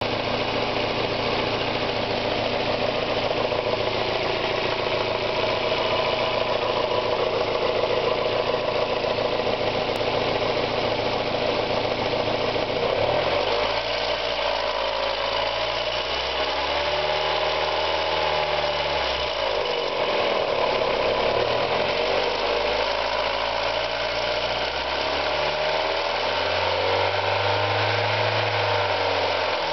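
Mazda Miata four-cylinder engine idling, then revved up and let back down, about halfway through and again near the end. It ticks through the low and middle revs, a tick the owner says fades above about 4000 rpm and which he takes for a possible hydraulic lash adjuster (lifter) tick while fearing rod knock or bearing failure.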